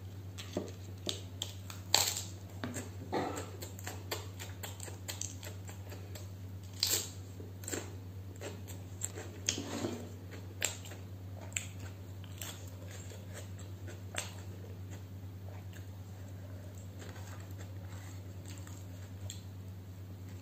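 Close-up eating sounds: fingers mixing rice on a steel plate, with wet chewing, lip smacks and a scatter of sharp mouth clicks, thinning out in the second half. A steady low hum runs underneath.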